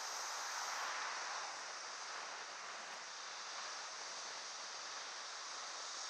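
Steady wind and road rush from a moving vehicle, swelling slightly about a second in, with no engine note standing out.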